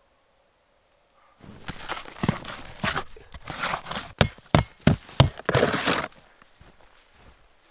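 Footsteps crunching in deep snow, starting about a second and a half in, with a few sharp cracks in the middle, and dying away about six seconds in.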